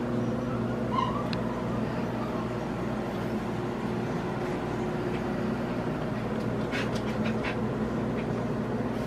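Steady machine hum with several even, unchanging tones. A short high whine comes about a second in, and a few light clicks sound near the end.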